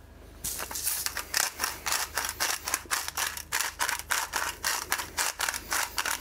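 Hand-twisted pepper mill grinding over a pan of potato slices: a fast, even run of crunching clicks, about four or five a second, starting about half a second in.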